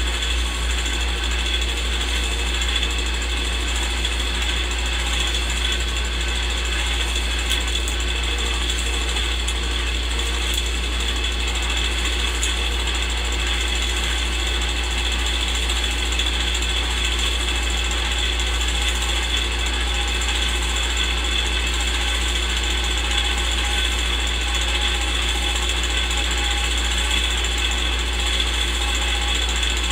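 Old film projector running steadily: a continuous mechanical clatter over a strong low hum, laid under still photos as an old-film sound effect.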